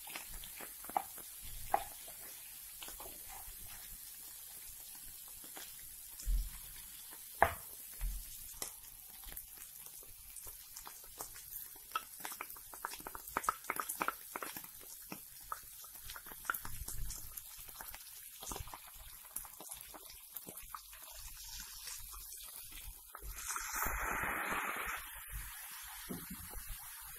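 Meat frying in a non-stick pan with a steady sizzle, while a spatula scrapes and knocks against the pan as it is stirred. About 23 seconds in, a louder burst of hissing lasts about two seconds.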